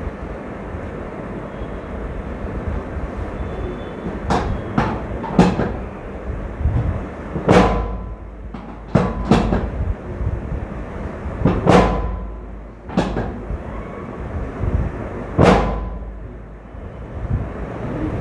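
A series of about nine sharp percussive impacts: three in quick succession, then single hits and a pair spread a second or more apart. A steady low rumble runs underneath.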